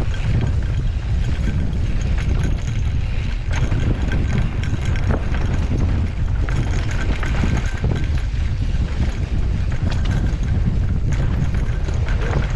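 Wind buffeting the microphone of a mountain bike riding downhill on a sandy dirt trail, over the crunch of tyres on loose dirt and scattered rattles and clicks of the bike over bumps.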